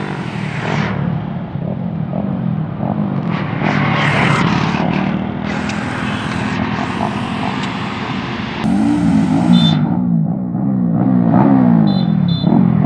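Motorcycle engine running, then revved up and down over and over in the last few seconds, louder there.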